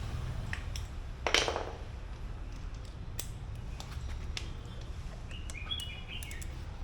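Small metal clicks and a short loud scrape about a second in, from hand work on a motorcycle's Brembo front brake caliper as its pad retainer plate is refitted.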